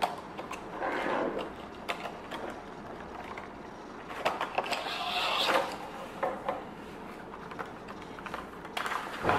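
Cardboard box and clear plastic packaging being opened and handled: rustling and crinkling with scattered light clicks and taps, loudest from about four to five and a half seconds in.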